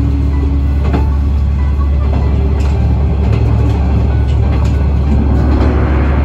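KiHa 120 diesel railcar running along the line, a steady low drone with scattered short clicks.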